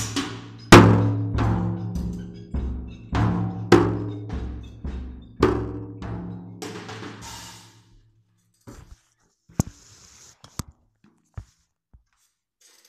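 Acoustic drum kit played with sticks: separate heavy hits roughly every half second, the loudest about a second in, with the toms and bass drum ringing low between them and a cymbal wash around seven seconds in. The playing then stops, leaving only a few faint clicks.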